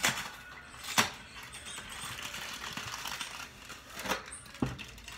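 A kitchen utensil clinking and scraping in a plastic mixing bowl as egg, oil and water are stirred: a sharp clink at the start, the loudest about a second in, a scraping rustle for a few seconds, then two more clinks near the end.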